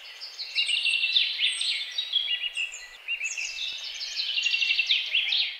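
Forest birdsong: several songbirds singing at once, a dense layering of quick chirps, trills and sweeping whistles.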